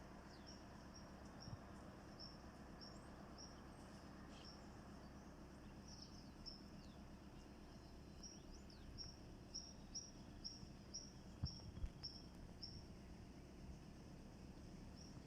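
Faint, high-pitched chirping repeated in runs of about two to three a second over a near-silent background. Two low thumps come about two-thirds of the way through.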